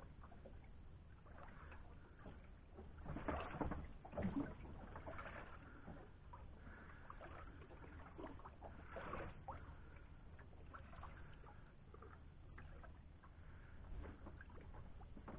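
Faint water lapping and sloshing against the hull of a small fishing boat on calm sea. It is broken by scattered light clicks and knocks, louder in two short clusters, one about three to four seconds in and one around nine seconds.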